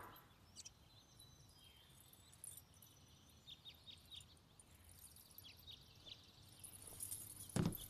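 Near silence: faint room tone with a few brief, high chirps in the middle, then a single soft knock near the end.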